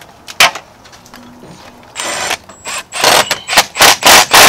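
A handheld power tool runs in a series of short trigger bursts, with a thin high whine running through them. A single sharp click comes about half a second in.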